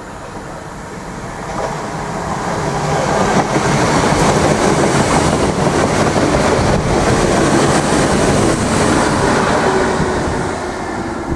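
Irish Rail DART electric multiple unit passing close by on the line. The rumble builds over the first few seconds, is loudest as the carriages go by, and eases off near the end.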